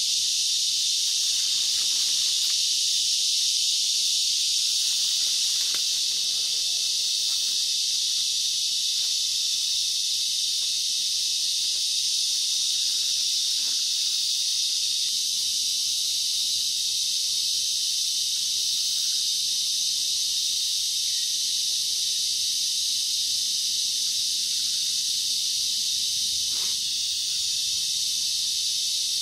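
Rainforest insect chorus: a loud, steady, high-pitched drone that holds without a break.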